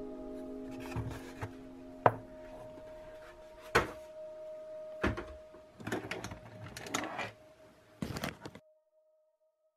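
Several short, sharp clicks and knocks of the hand blender's plastic parts being handled, the loudest about two seconds in, with the tail of acoustic guitar music fading at the start. The sound cuts off abruptly near the end.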